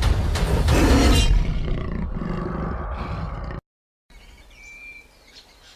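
A big cat roaring, loud and rough, cut off abruptly a little over halfway through, followed by a quiet stretch with only faint sounds.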